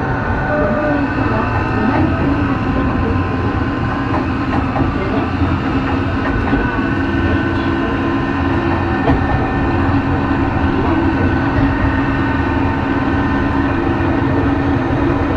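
Tokyo Metro 03 series chopper-controlled motor car heard from inside while running: a steady rumble of wheels on track, with several steady whining tones over it.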